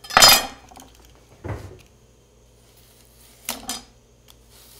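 A kitchen knife and utensils knocking on a wooden cutting board: one loud, sharp knock at the very start, then a few fainter knocks and clicks.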